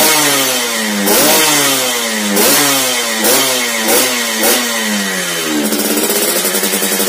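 Yamaha RX-King's single-cylinder two-stroke engine being free-revved through an aftermarket 'telo' expansion-chamber exhaust: five quick throttle blips, each rising sharply and falling back. It then settles to a steady idle near the end.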